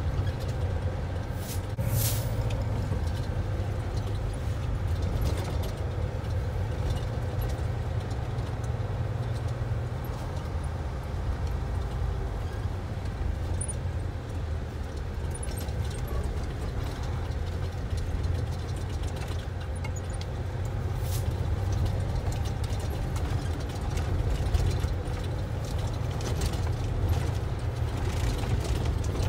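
Cab of a truck driving along a rough gravel road: a steady low rumble of engine and tyres on gravel, with light rattles and two sharp knocks, one about two seconds in and one past the middle.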